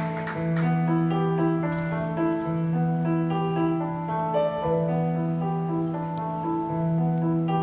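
Solo piano playing a slow, gentle introduction before the singing begins. A low bass note is struck again about every two seconds under a moving pattern of higher notes.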